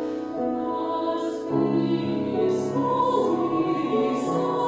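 Mixed choir singing a slow passage of held notes, with lower voices coming in about a second and a half in.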